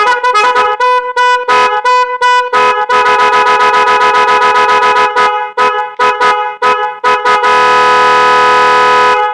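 Multi-tone musical 'magic horn' sounding several notes at once: a quick string of short toots, then a fast pulsing stretch, more spaced-out toots, and a long held chord that cuts off suddenly near the end.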